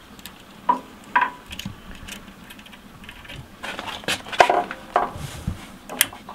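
Small metal parts and a hand tool clinking against the exposed gear-shift mechanism of a Kawasaki KDX80 engine's open transmission case. Scattered light metallic clicks, a few with a short ring, come in a busier cluster about four to five seconds in.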